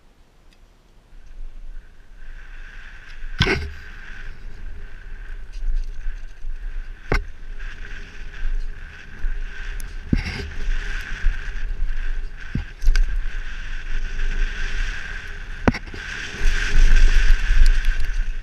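Helmet-camera sound of a mountain bike ridden fast down a dirt trail: wind buffeting the microphone and tyres rolling over dirt, with a steady high whine through the ride. Sharp knocks from bumps and landings come about four times, and the rushing gets loudest near the end.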